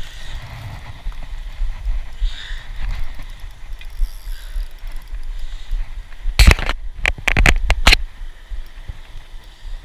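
Low rumble and rustling of handling noise on the camera's microphone, with a cluster of sharp knocks and clicks about six and a half to eight seconds in.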